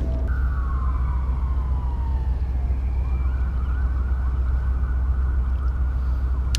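Baitcasting reel's spool whining as line pays out on a cast, its pitch falling steadily as the spool slows. From about three seconds in, a repeating warbling whine follows as the reel is cranked. Wind rumbles on the microphone underneath.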